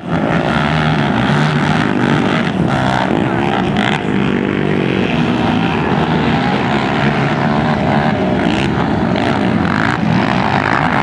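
Several racing quad ATV engines running hard together, their pitch rising and falling as the riders throttle on and off around the dirt track.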